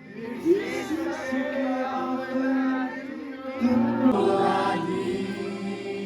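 Live band playing a Nepali song, with several voices singing together over steady held instrument notes.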